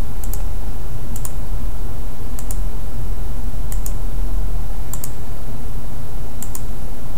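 Computer mouse clicking: six short press-and-release clicks spaced roughly a second apart, over a steady low hum.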